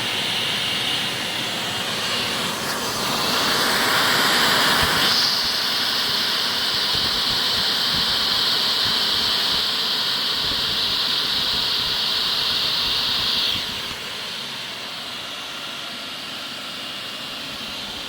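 A 7.5 kW side channel ring blower running and pushing air through a 5 kW hot air gun, giving a steady, high hissing rush of air. It grows louder and brighter about three seconds in, then drops noticeably quieter about fourteen seconds in.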